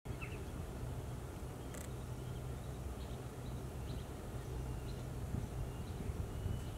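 Outdoor ambience: a steady low hum, with a few faint, brief high bird chirps scattered through it and one sharp click about two seconds in.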